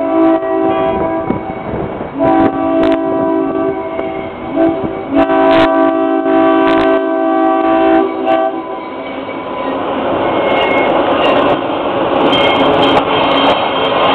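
A GE 44-ton centercab diesel locomotive sounds its multi-tone horn in the grade-crossing pattern: long, long, short, long, over the first eight seconds or so. Then the rumble of its engines and wheels grows louder as it rolls up close.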